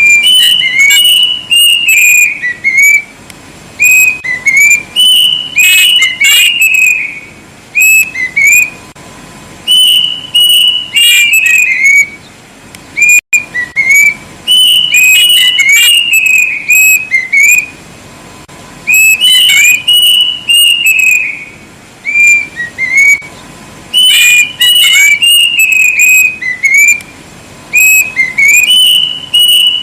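Plaintive cuckoo (kedasih) singing loud whistled phrases over and over. Each phrase is a few clear notes stepping down in pitch, with short pauses between phrases.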